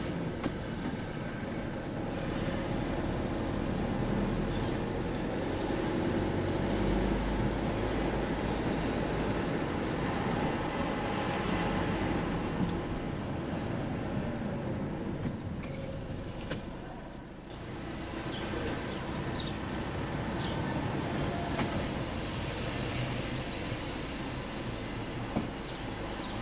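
Steady rumble of vehicle noise, dipping briefly about two-thirds of the way through.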